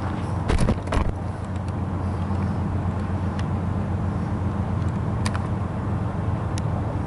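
Steady low rumble of approaching diesel locomotives, with a few light clicks about a second in.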